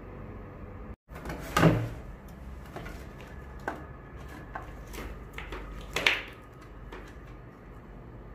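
Hands handling wires and a white plastic multi-pin connector, giving scattered plastic clicks and knocks. There are two louder knocks, about a second and a half in and about six seconds in.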